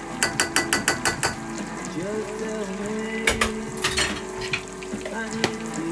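A metal utensil tapped rapidly against the rim of a stainless steel frying pan, about eight quick taps in a second, then a few single knocks, over gravy bubbling in the pan. A low droning tone rises and then holds steady behind it.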